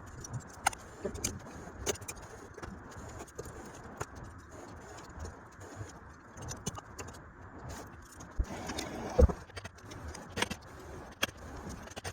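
Hair dryer blowing steadily into a small wood-fired forge, with scattered light metal clinks and one heavier knock about nine seconds in.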